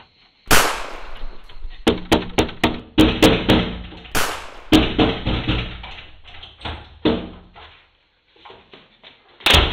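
Hands pounding and rattling a shut metal-framed glass door: a rapid run of knocks that ring in the door. There are two louder bangs, about half a second and about four seconds in, then a pause and one last sharp bang near the end.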